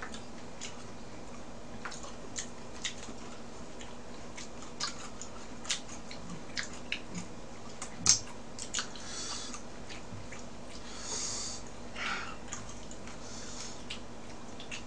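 A person chewing raw mullet sashimi close to the microphone: scattered wet mouth clicks and smacks, with a few short hissing noises, over a steady low hum.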